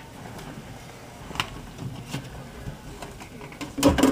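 A couple of light clicks, then near the end a cluster of louder metallic knocks and rattles as the steel side panel of a Dell Vostro 200 desktop case is handled and set against the chassis to be refitted.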